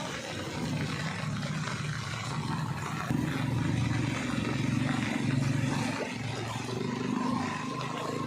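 A motor vehicle's engine running, getting louder about three seconds in.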